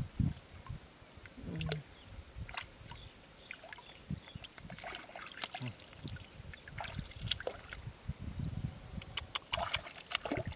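Hands digging in wet mud and shallow water: scattered squelches, small splashes and drips as freshwater clams are pulled out of the mud.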